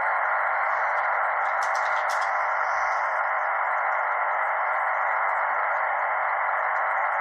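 Steady shortwave receiver static heard through a WebSDR: an even, band-limited hiss with no signal in it.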